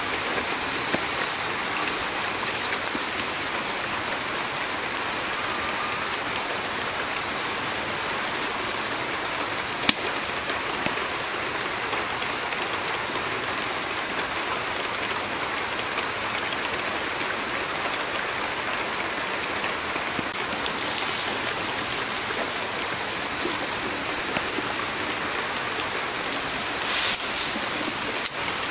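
Fish curry sizzling and bubbling in a wok over a wood fire, a steady hiss, with one sharp crack about ten seconds in. Near the end a louder burst of sizzling as chopped taro stems are tipped into the hot pan.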